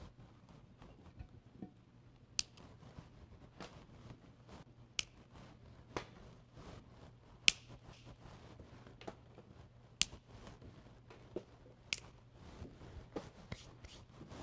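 Fresh asparagus spears being snapped by hand, their woody ends breaking off with a crisp snap. The snaps come one every second or so, about a dozen in all, with faint handling sounds between them.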